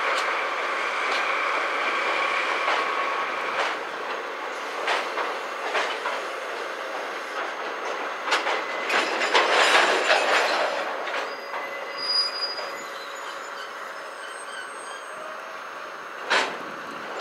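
Freight train of cement tank wagons rolling slowly over a rail bridge. The wheels squeal in a steady high tone for the first few seconds, then click irregularly over the rail joints, with thin higher squeals later on.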